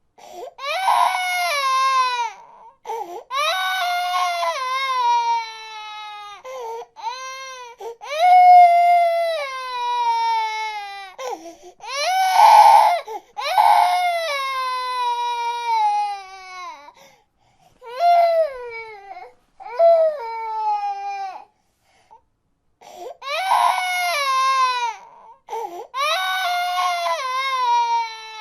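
A baby crying: a run of high-pitched wailing cries, each falling in pitch and broken by short catches of breath. The crying stops briefly twice in the second half.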